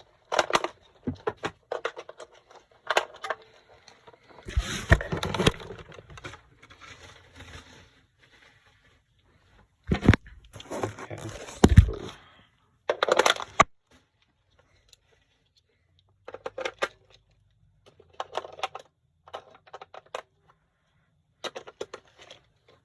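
Hands handling and fiddling with an animated Halloween figure: irregular rustles, scrapes and sharp clicks in short bursts, with a few quiet gaps.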